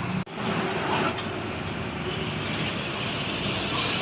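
Road traffic passing, a steady rushing noise of heavy vehicles and tyres, with a momentary cut-out in the sound just after the start.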